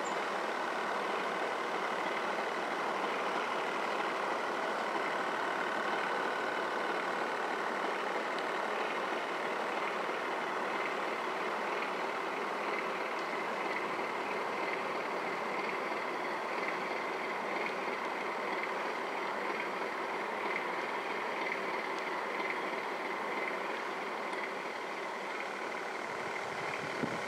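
Radio-controlled model boats under way, a steady, unbroken motor hum with a faint high whine running through it.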